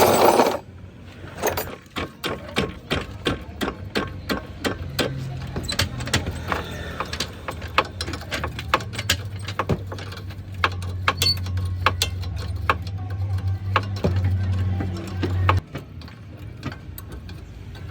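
Car with many sharp, irregular clicks and knocks over a low engine hum; the hum stops suddenly a couple of seconds before the end.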